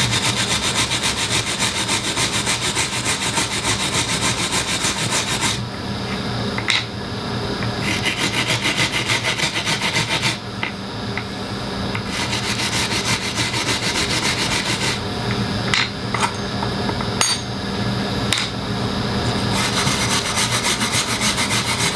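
Disassembled A5 clipper blade parts being cleaned against a spinning wire wheel. A scratchy, rasping brushing comes in four long passes over a steady motor hum, with a few light clicks in the gaps between passes.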